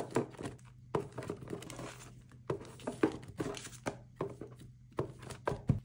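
Paper banknotes and paper envelopes rustling and crinkling as they are handled and slid into a box of cash envelopes, in short irregular bursts with a few soft taps.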